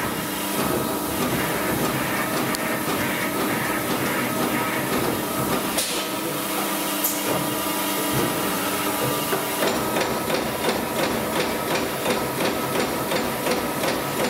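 LVD Delta 1250 CNC turret punch press running. A steady machine hum plays while the sheet table moves, with a brief hiss about six seconds in. From about ten seconds in comes a fast, even run of punch strokes, about four a second.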